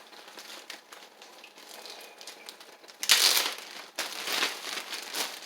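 Bag of brown sugar rustling and crinkling as it is handled and opened, faint at first and loudest about three seconds in.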